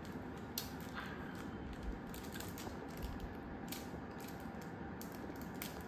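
Faint, irregular small clicks and rustles as hands handle a rakhi thread before tying it, over a low steady room background.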